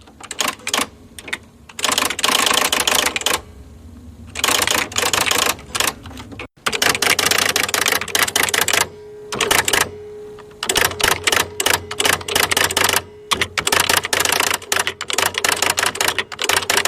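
Typewriter keys striking in quick runs of clattering keystrokes, each run lasting a second or two with short pauses between them.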